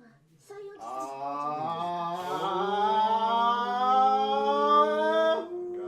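A person's voice holding one long drawn-out note, slowly rising in pitch for about four and a half seconds before cutting off sharply.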